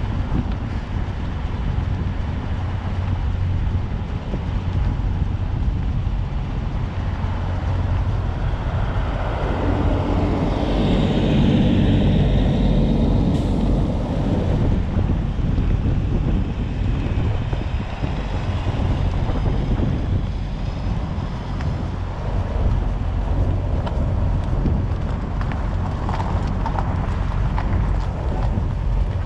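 A vehicle driving slowly: a steady low engine and road rumble with wind buffeting the microphone. Around the middle a louder engine sound swells and fades, with a short sharp hiss.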